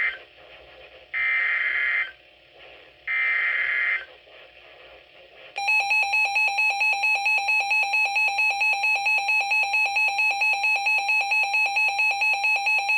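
NOAA Weather Radio alert signalling: the SAME digital header bursts, screechy one-second data tones with about a second between them, encoding a severe thunderstorm warning. About five and a half seconds in, the receiver's electronic alert alarm starts, a loud rapid pulsing beep that keeps going.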